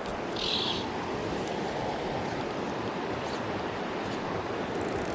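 Steady rush of a tailwater river's current flowing over rocks, with a brief hiss about half a second in.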